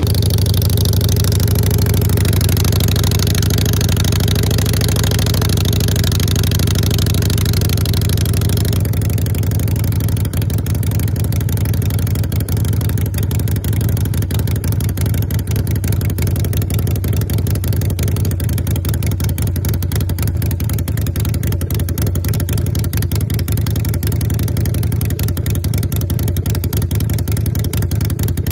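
2015 Harley-Davidson Sportster Iron 883's air-cooled 883 cc V-twin idling steadily just after starting.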